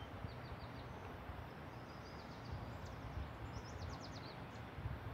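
Small birds chirping over steady outdoor background noise with a low rumble: a quick run of four short high notes near the start, then a fast series of falling notes about three and a half seconds in.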